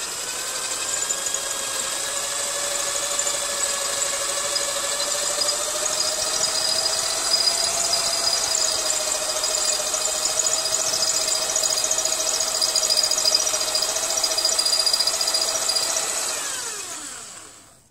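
Power drill running steadily under load while drilling out a broken bolt, with a high whine. Near the end its pitch falls as it winds down and stops.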